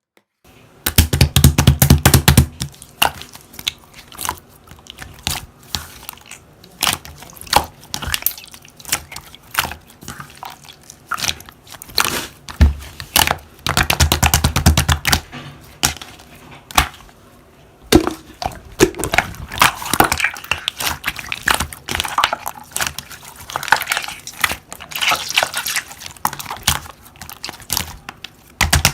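Slime being handled and pressed, giving dense crackling and popping clicks with louder squelching presses about a second in, around the middle and near the end.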